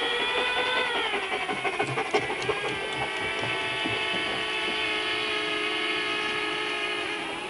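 Small multirotor drone's propellers whining in a stack of steady tones, dropping in pitch about a second in and then holding steady.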